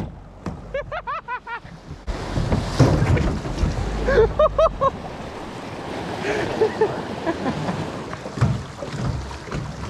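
River rapids rushing and splashing around a metal boat as it runs through whitewater, with wind on the microphone; the rushing gets louder about two seconds in. A few brief voice sounds come through it.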